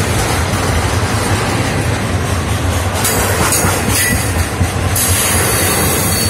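Double-stack intermodal well cars of a Florida East Coast Railway freight train rolling past close by: a loud, steady rumble of steel wheels on rail, with a clickety-clack.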